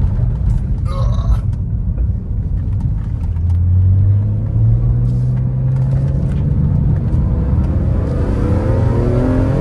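BMW E46 M3's S54 straight-six running on the road. Its pitch steps up about halfway through and climbs steadily near the end as the car accelerates.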